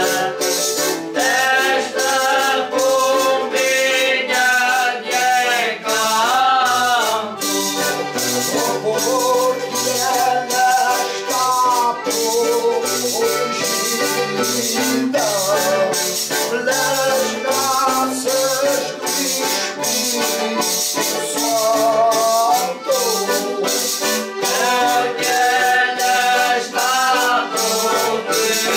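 Male folk singers singing a Holy Spirit song together, accompanied by a strummed guitar and small brass hand cymbals clashed on a steady beat.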